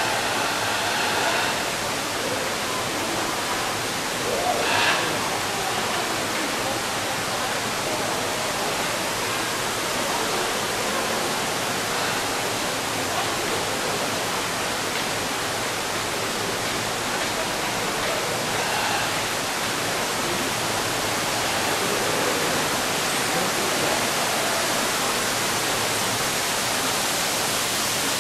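Steady rush of falling water from the water features of an indoor tropical-forest habitat, with one brief, louder sound about five seconds in.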